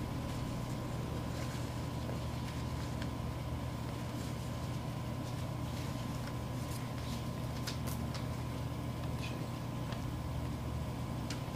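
Steady low hum with a faint thin high tone, under light scattered rustling and clicking of hands rummaging through a cloth drawstring bag of paper name cards.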